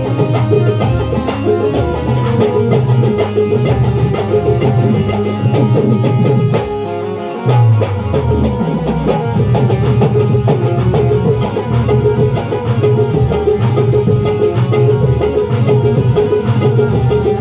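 Loud music with a heavy drum beat and deep bass, played through a sound system for a sound check. The beat thins out briefly about seven seconds in and returns with a bass hit.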